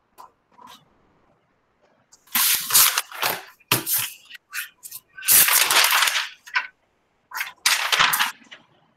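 Loud bursts of crackling, rustling noise from a student's unmuted microphone coming through a video call. They come in several clusters starting about two seconds in, and the longest is near the middle.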